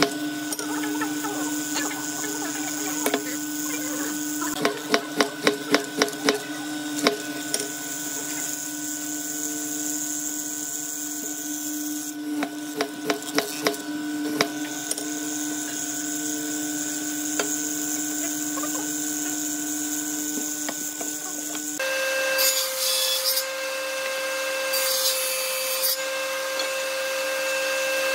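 Hollow-chisel mortiser running with a steady motor hum, with two runs of quick sharp knocks, about three a second, as the square chisel is worked into a pine board. About 22 seconds in, a table saw takes over, running steadily with short bursts of cutting noise as wood is fed to the blade.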